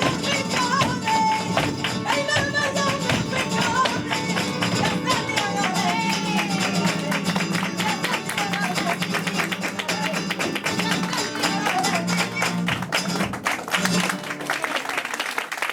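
Live flamenco bulería: a guitar with a sung line and dense, rhythmic sharp claps and strikes. The singing stops about two seconds before the end, leaving mostly clapping.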